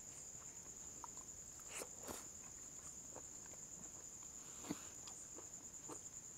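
Crickets chirping in a steady, high-pitched trill, with soft scattered clicks and taps from people eating by hand, one sharper tap about four and a half seconds in.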